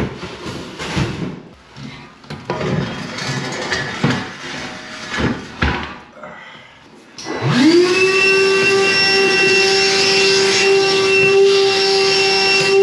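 Knocks and scraping as a ceramic toilet pan is pulled away from the wall. About seven seconds in, a wet vac motor starts: its whine rises in pitch as it spins up, then runs steadily and loudly.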